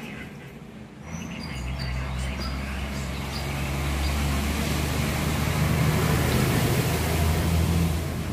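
A motor vehicle's engine running close by: a steady low hum that comes in about a second in and swells, loudest in the second half.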